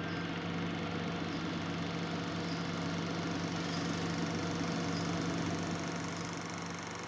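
A steady low machine hum with an even hiss over it, fading slowly near the end.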